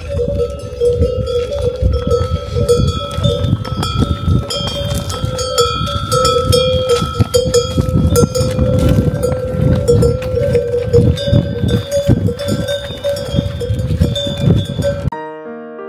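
Bells on a train of pack animals jangling steadily, with irregular clatter and rumble underneath. Piano music cuts in just before the end.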